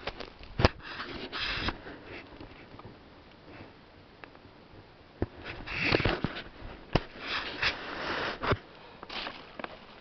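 Footsteps crunching through a dry forest floor of leaves, pine needles and reindeer lichen, in uneven bursts of rustling, with a few sharp snaps of dry twigs underfoot.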